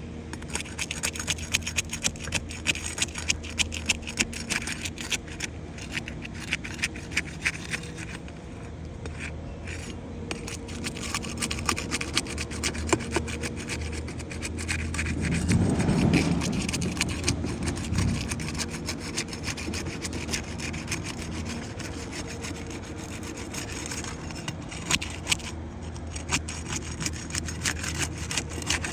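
Roof shingles being worked loose by hand for a repair test: repeated scraping and crackling as the shingles are pried and lifted, with a brief low rumble about halfway through.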